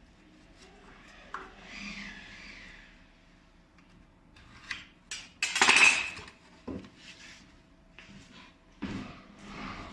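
Scattered clinks and knocks of hard objects being handled, with a louder clatter lasting about a second, starting about five and a half seconds in.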